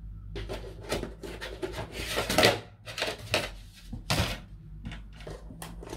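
Paintbrushes being picked through and handled on a tabletop: irregular light clicks and rustling, loudest about two seconds in and again just after four seconds.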